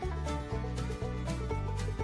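Background music with a steady beat: bass notes and plucked notes in an upbeat, country-flavoured tune.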